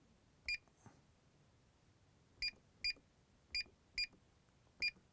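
Honeywell Galaxy intruder alarm keypad beeping once for each key press: six short, high beeps, one about half a second in, then five in fairly quick succession from about two and a half seconds on, as the digits of a new date are keyed in.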